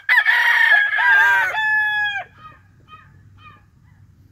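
Thai game rooster crowing once: a loud crow of about two seconds that ends on a long held note. A few faint short calls follow.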